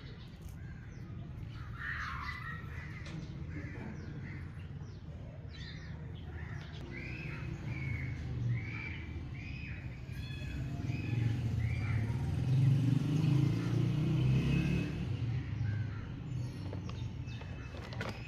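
A bird calling in a run of short, repeated calls, about two a second, mostly in the first two-thirds. Under them is a low rumble that swells to its loudest about two-thirds of the way through.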